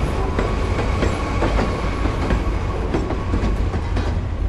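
Commuter train running along the rails with a steady low rumble, scattered clicks and clatter from the wheels.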